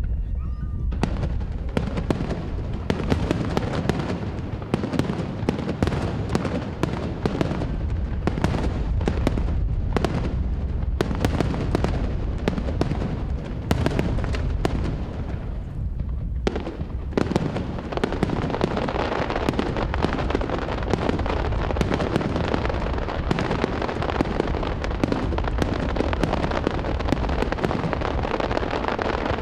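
Aerial fireworks display: shells bursting in rapid, overlapping succession with deep booms and sharp reports. About sixteen seconds in there is a brief lull, then the bursts resume with denser crackling.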